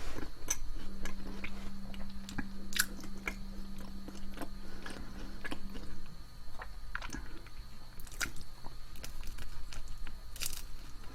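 Close-miked eating: chewing and biting with scattered sharp, crisp clicks, a louder cluster near the end. A faint steady low hum runs through the first half.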